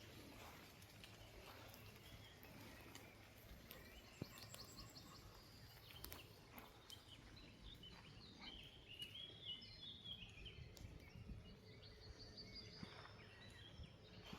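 Quiet forest ambience with small birds chirping faintly, a run of quick high chirps through the middle and more near the end, and a few soft ticks.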